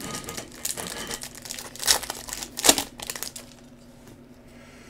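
A trading-card pack wrapper being slit and crinkled open. There are two sharper, louder crackles about two and nearly three seconds in, and it goes quieter near the end.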